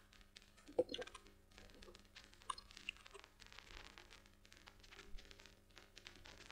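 Faint, scattered clicks of typing on a computer keyboard and clicking a mouse, with one louder knock about a second in, over a faint steady hum.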